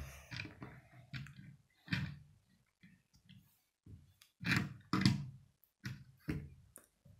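Irregular knocks and clicks of a plastic Lego police car being handled and pushed across a wooden tabletop. The loudest knocks come about four and a half to five seconds in.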